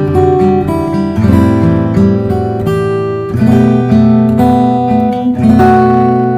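Music on acoustic guitar: a run of picked and strummed chords, the last struck about five and a half seconds in and left ringing.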